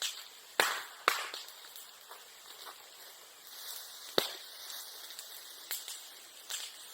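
Bamboo and bamboo grass burning in a bonfire, crackling with sharp pops as the stems burst. The three loudest pops come about half a second in, about a second in and about four seconds in, with smaller cracks between them.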